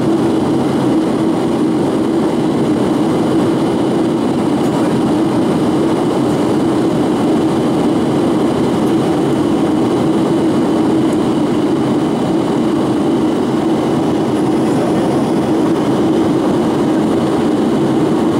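Steady drone of an aircraft in flight heard inside the cabin: even engine and airflow noise with a low hum, holding level.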